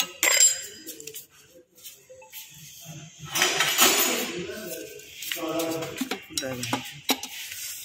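Metal spanner clinking and scraping against the bolts and aluminium casing of a Maruti WagonR manual gearbox as the reverse shift lever's two bolts are undone. There are sharp clinks right at the start and a longer scrape a little past the middle.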